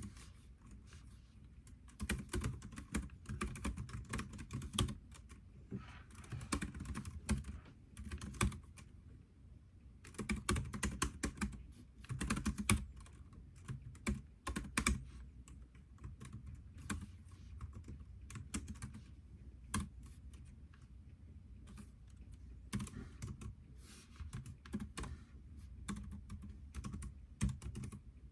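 Typing on a computer keyboard: rapid key clicks in bursts of a second or two, with short pauses between them.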